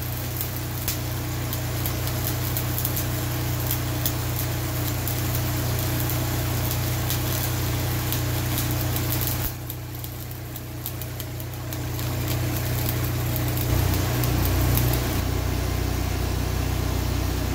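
Stick welding with 7018 electrodes: the arc crackles and sputters over the steady running of a gasoline engine-driven welder. The arc goes out for a couple of seconds about halfway through, leaving only the engine, then strikes again.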